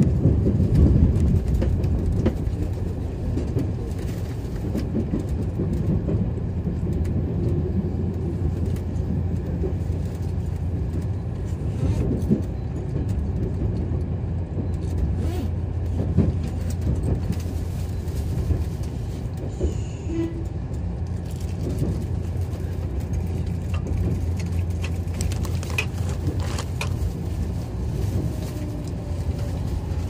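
Inside a JR Central 383-series electric limited-express car while the train runs: a steady low rumble of wheels on rail, with a few short knocks from the track.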